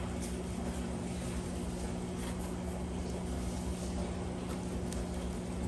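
A steady low machine hum with a few held tones, like a fan or air-conditioning unit running. Faint scuffs and ticks of cardboard and foam packing sound over it as a grow light is lifted out of its box.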